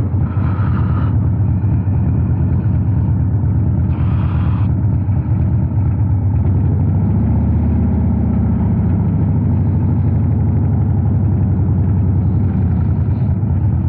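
Harley-Davidson Street Glide's V-twin engine running at low speed as the bike rolls slowly along, a loud steady low exhaust note that grows fuller about halfway through. Two brief hisses sound near the start and around four seconds in.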